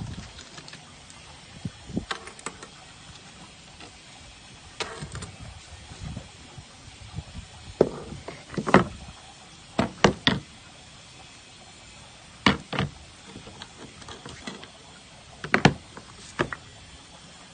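Soap cutter in use: irregular knocks and clunks of the cutter frame and soap being pushed and set down, a dozen or so, some coming in quick pairs and a cluster of three near the middle.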